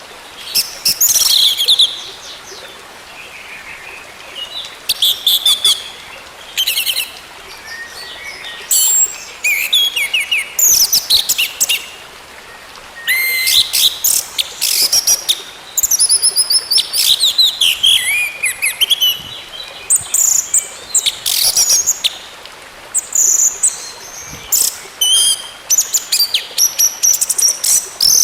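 Orange-headed thrush singing: fast, varied phrases of high whistled, trilled and chattering notes, one after another with short pauses between them.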